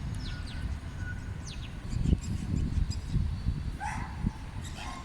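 Songbirds and small parrots chirping in the treetops, with quick descending chirps and short whistled notes, over a steady low rumble of road traffic. A harsher call with several overtones comes a little before the end.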